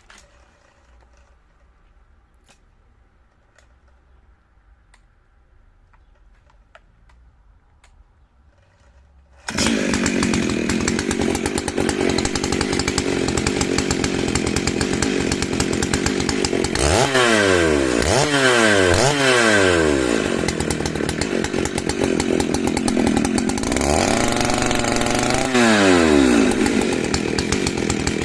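Faint quiet with a few small clicks. About a third of the way in, a big high-displacement chainsaw cuts in suddenly at full throttle, sawing through hard dry beech. Its pitch dips and recovers several times in the second half as the chain loads in the cut.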